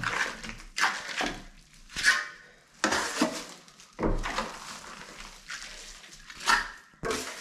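A 4-inch pool trowel scraping wet plaster across a wall, laying on a first coat in repeated sweeping strokes about a second apart, with a quieter stretch in the middle.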